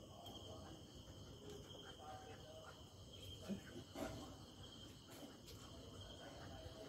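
Quiet background with a faint, steady high insect chirring, likely crickets. Two soft knocks come about three and a half and four seconds in.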